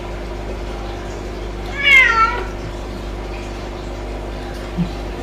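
A domestic cat meowing once, about two seconds in, the pitch dropping toward the end of the call.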